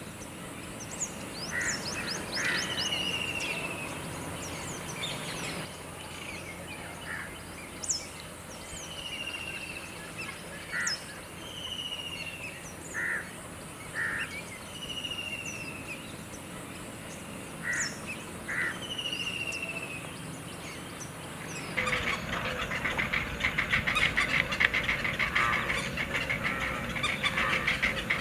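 Birds calling: repeated short descending whistles and brief paired calls, then, about three quarters of the way in, a sudden switch to a dense, rapid chattering of many birds.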